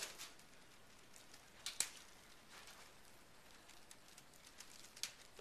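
Faint light taps, a few sharp ones over several seconds, from a rubber-band-powered balsa model helicopter flying up against the ceiling tiles.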